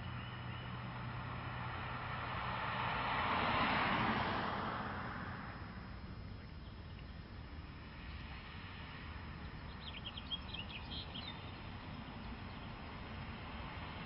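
A Buick LaCrosse sedan driving past, its tyre and road noise swelling to a peak about four seconds in and then fading to a quieter steady background. A bird chirps a few times about ten seconds in.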